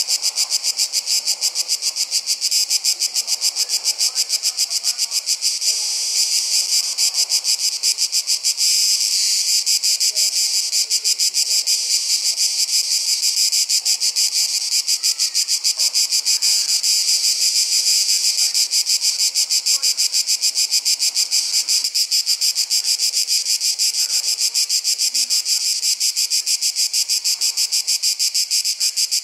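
Chorus of summer insects: a loud, steady, high-pitched buzz made of fast, even pulses that go on without a break.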